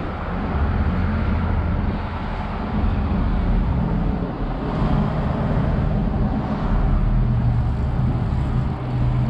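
Steady motor-vehicle noise: a low engine hum with traffic rumble.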